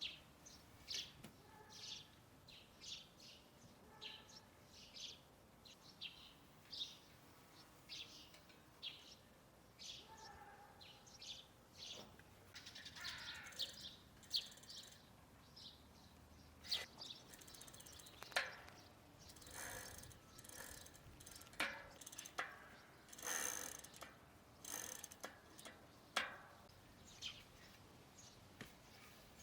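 Birds chirping faintly in short high notes, about one a second, with a run of sharper clicks in the second half.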